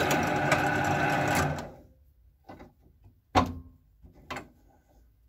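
Bench drill press running with a 16 mm spade bit boring through a wooden block, a steady machine drone that falls away about one and a half seconds in. Then a few short knocks as the block is handled in the drill-press vise.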